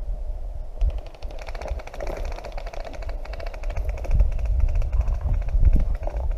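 Footsteps and brush rustling with low thumps on the microphone as a player pushes through dense scrub. From about a second in, a fast, even rattle of clicks runs underneath.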